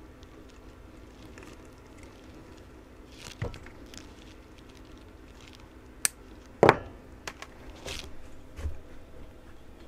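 Wire and hand tools handled on a rubber bench mat: light rustles and clicks, with a sharp click about six seconds in and a louder knock just after.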